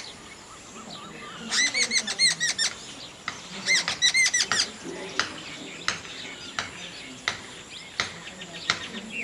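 Common tailorbird calling: two quick runs of sharp, repeated chirps, one about a second and a half in and one about four seconds in, followed by scattered single clicks.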